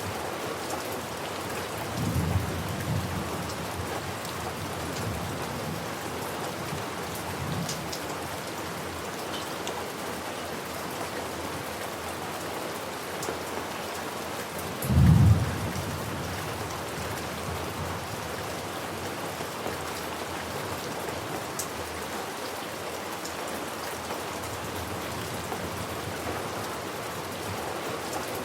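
Steady rain falling, with thunder rumbling low about two seconds in and a short, loud low thunderclap about halfway through.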